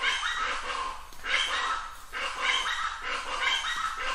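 Plain chachalaca calling: a run of harsh, rhythmic calls in short repeated phrases of several notes.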